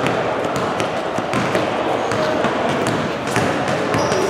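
A basketball bouncing on an indoor court in scattered knocks, over a steady background of gym noise.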